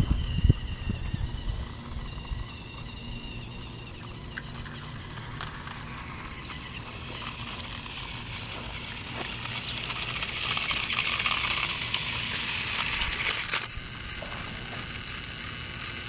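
Battery-operated Trackmaster Thomas toy train running along plastic track, its motor and wheels getting louder as it approaches. The sound cuts off suddenly a couple of seconds before the end.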